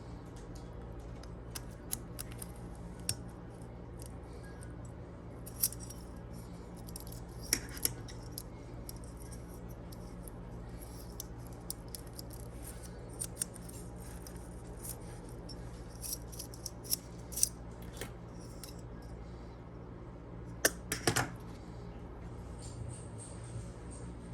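Scattered light clicks and taps of small parts and hand tools being handled, a few louder clusters of clicks about a third of the way in and near the end, over a steady low hum.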